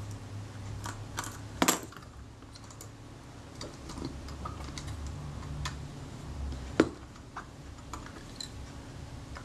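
Scattered small metal clicks and taps from a Kodak Retina IIIS camera body and its tools being handled while the film advance is removed, with two louder sharp knocks, about one and a half seconds in and near seven seconds in, over a faint low hum.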